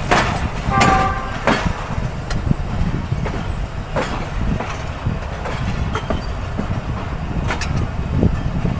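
Passenger train wheels running over the track, with a steady low rumble and irregular sharp clicks from rail joints. A brief high-pitched note sounds about a second in.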